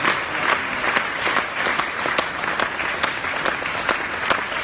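Audience applauding, with distinct claps standing out in a steady beat about twice a second.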